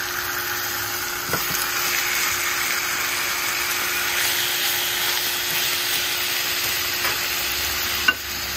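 Raw pork chops sizzling steadily in a hot nonstick frying pan, freshly laid in to sear. A light click about a second and a half in and a sharper tap near the end.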